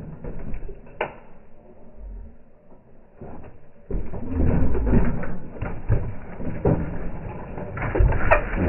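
Slow-motion recording of a mountain bike bumping down wooden stairs and crashing. Its knocks and rattles are scattered at first, then grow louder and thicker about four seconds in, with a sharp click near the end.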